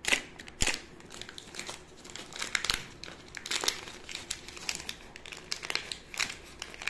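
Wrapping paper and a cardboard box crinkling and rustling as a paper-wrapped pen packet is worked loose from the box and lifted out, with two sharp clicks in the first second.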